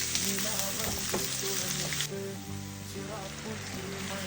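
Food sizzling as it fries in a hot pan, loudest for the first two seconds and then easing to a softer sizzle.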